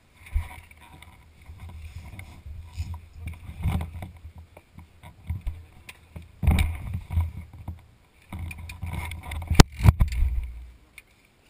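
Rumbling and knocking on an action camera's microphone as the camera is moved about, then a few sharp, loud clicks and thumps as it is picked up by hand near the end.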